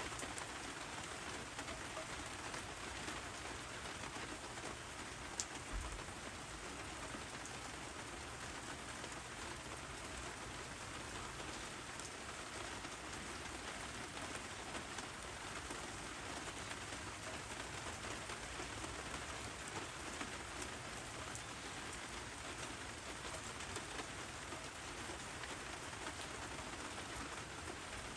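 Steady rain falling, with one short click about five seconds in.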